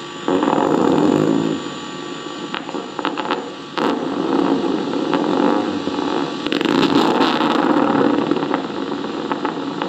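Needle EMG loudspeaker playing myotonic discharges: a crackling buzz that swells and fades in repeated surges, the typical 'dive bomber' sound. It comes from a muscle at rest that should be electrically silent, and it is the sign of myotonia.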